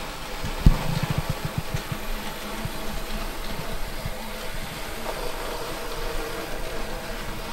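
Graham Farish N gauge 57xx pannier tank locomotive running on track, its small electric motor giving a steady whir. There is a sharp click about a second in and a run of light ticks over the next two seconds. The locomotive has a newly fitted DCC decoder and is still bedding in.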